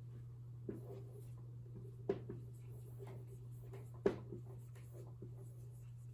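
Writing sounds: scratchy strokes and a few sharp taps, the two loudest about two and four seconds in, over a steady low electrical hum.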